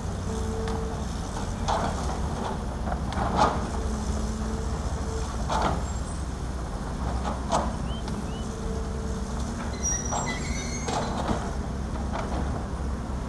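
Heavy diesel earthmoving machinery, excavators and dump trucks, running steadily with a low engine drone and a mid-pitched hum that comes and goes. About eight sharp clunks and knocks from the buckets and rock sound through it.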